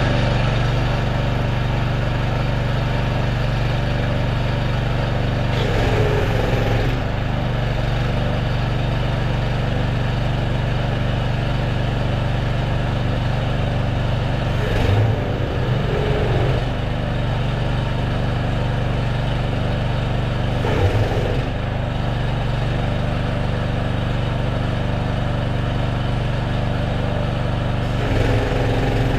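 Pressure washer's small engine running steadily, its note wavering briefly a few times.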